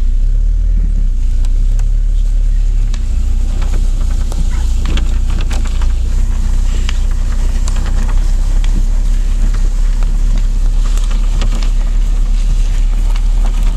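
Canoe being pulled quickly across a grass field: a loud, steady low rumble with many small clicks and rattles throughout.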